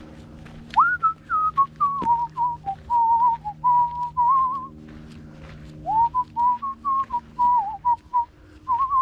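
A person whistling a tune in two phrases. The first starts about a second in with an upward slide into the notes. After a short pause, a second phrase begins about six seconds in, also opening with an upward slide.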